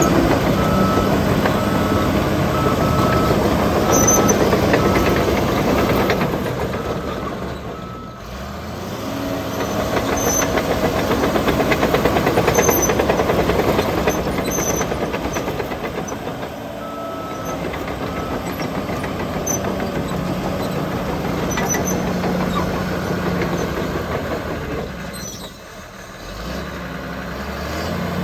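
CAT D5G XL bulldozer's diesel engine running under load as the machine moves. Its backup alarm beeps steadily during the first several seconds and again briefly about halfway through. The engine drops off twice, about a third of the way in and near the end.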